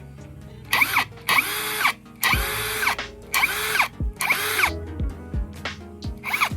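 Ingco brushless cordless impact driver run in about six short trigger bursts, each lasting around half a second, with the motor pitch rising and falling in each one. Background music plays underneath.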